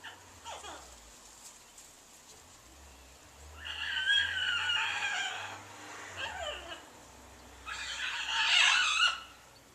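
Large pet bird calling repeatedly: short falling calls, and two long, harsh screeches, one about four seconds in and a louder one near the end.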